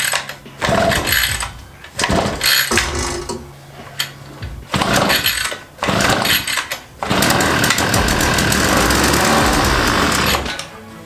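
The 49cc go-kart engine being pull-started: about four short tugs on the recoil starter cord. About seven seconds in it fires and runs for roughly three seconds, then stops suddenly.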